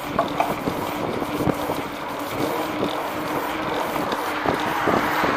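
Bicycle with a knobby tyre rolling along a concrete sidewalk: a steady hum with scattered knocks and rattles, and wind buffeting the microphone.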